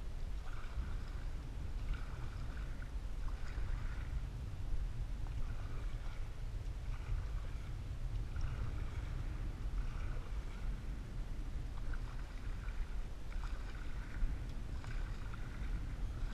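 Canoe paddle strokes swishing through the water about every second and a half, over a steady low rumble.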